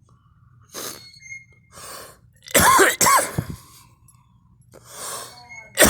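A person coughing: a couple of sharp breaths, then two loud coughs in quick succession about two and a half seconds in, another breath, and a fresh loud cough starting right at the end.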